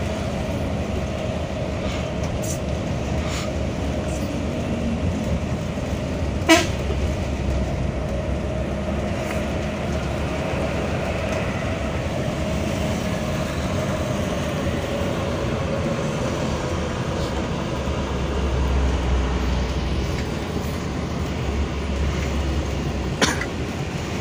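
A moving coach's engine and road noise heard from inside the cab: a steady rumble with a faint steady tone. There is a sharp knock about six seconds in and another near the end.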